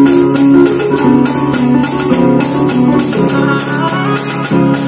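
Loud amplified band music through a truck-mounted sound system: an electronic keyboard playing a melody over a steady drum and percussion beat.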